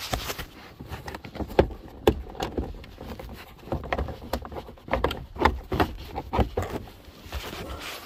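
Irregular clicks, knocks and rustling: a phone being handled against clothing while the plastic lower steering-column cover of a 2008 Chevy HHR is worked loose from its clips.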